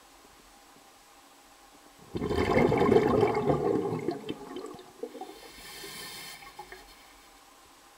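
A loud burst of gurgling, rushing water about two seconds in, lasting roughly two and a half seconds and trailing off. A short faint hiss follows near the end.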